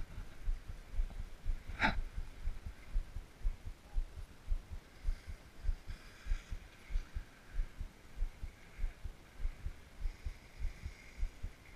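Low, irregular thumps on a GoPro's microphone, a few a second, with one brief sharp sound about two seconds in.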